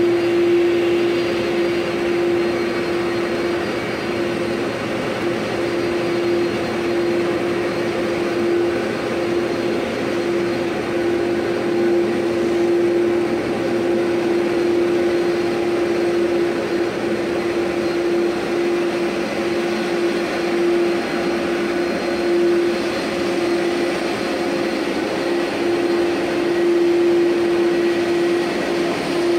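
Airbus A330-200's jet engines running on the ground: a steady rushing drone with a constant hum.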